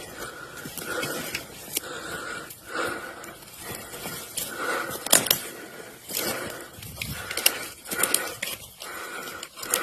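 Heavy rhythmic breathing, about one breath a second, with footsteps crunching and twigs snapping in dry sagebrush and a few sharp clicks.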